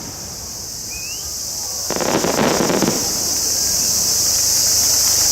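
Insects chirping in a steady, high-pitched chorus, with a brief burst of noise about two seconds in.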